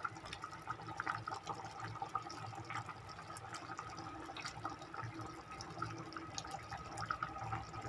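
Beef pochero, a thick tomato-based stew, bubbling at a boil in a pot: a steady stream of small irregular pops and plops.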